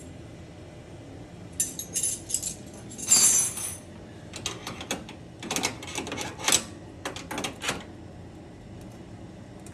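Small metal wrenches clinking and rattling against each other as they are handled and sorted, in scattered bursts of clicks, with a longer, louder rattle about three seconds in.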